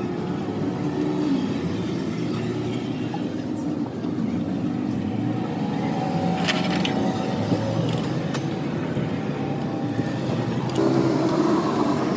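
A motor vehicle engine running steadily, its pitch drifting slightly, with a few sharp clicks about six and a half seconds in.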